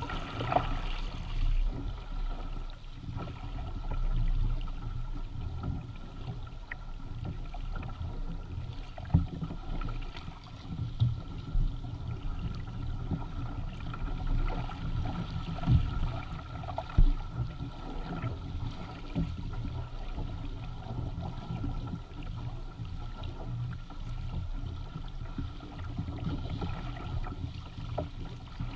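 Water rushing and splashing along the hull and outrigger floats of a Hobie Tandem Island sailing kayak under way, with wind rumbling on the microphone. A few sharper slaps stand out, the loudest around the middle.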